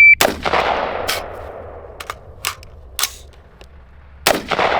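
A shot timer's start beep, then a loud gunshot straight after it and a second loud gunshot about four seconds later, with several quieter shots in between; each shot rings out with an echo.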